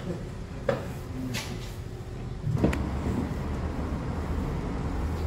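Steady low rumble of street traffic around a bus station, with three short sharp clacks, at about one, one and a half and near three seconds in.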